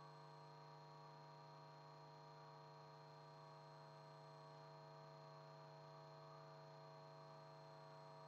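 Near silence with a faint, unchanging electrical hum made of several steady tones.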